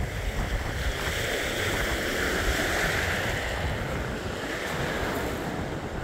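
Choppy Black Sea waves breaking and washing over a pebble beach in a steady surf that swells a little in the middle, with wind blowing on the microphone.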